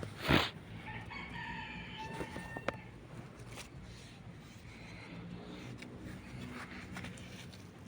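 A rooster crows once, a long pitched call starting about a second in. Just before it, a short loud thump or rustle, the loudest sound here, and a sharp click follows a little after the crow.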